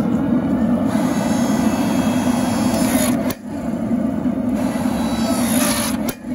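Small engine of a hydraulic forging press running steadily at a constant speed, with two brief dropouts, about a third of the way in and near the end.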